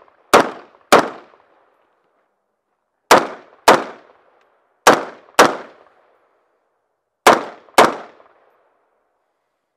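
AR-style semi-automatic rifle fired in four pairs of shots, the two shots of each pair about half a second apart, with a pause of one to two seconds between pairs. Each shot is loud and rings out briefly.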